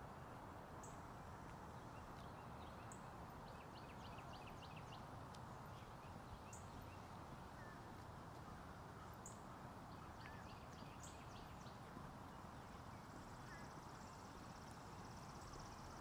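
Faint outdoor ambience: songbirds chirping, with a short high note every two or three seconds, over a low steady distant rumble. There are soft footsteps on a paved path.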